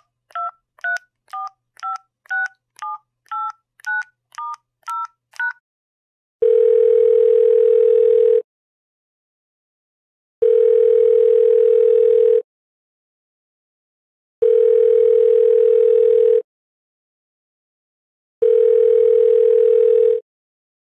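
A touch-tone phone number being dialed, about a dozen quick two-note keypad beeps, then the ringing tone of the call on the line: four long buzzy tones of about two seconds each, with two-second gaps.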